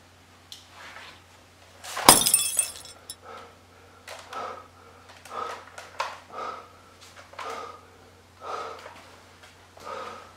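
Glass breaking with a loud crash about two seconds in, its bright shards ringing briefly afterwards. A run of softer sounds follows, about one a second.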